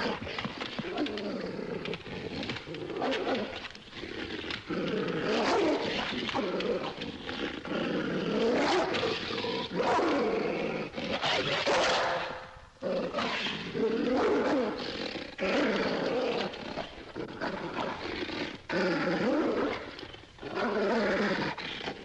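Dog snarling and growling aggressively, as a dog does when attacking, in repeated bouts of a second or two each with short breaks between.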